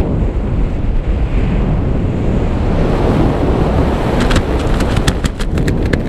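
Wind rushing over the camera microphone during a parachute descent, a steady low buffeting. In the second half come a run of short sharp flaps and rustles as the canopy fabric is handled.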